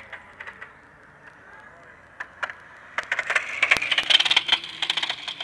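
Bagged RC truck dragging its metal underside along asphalt and throwing sparks: a few scattered ticks, then a dense run of rapid scraping clicks from about three seconds in.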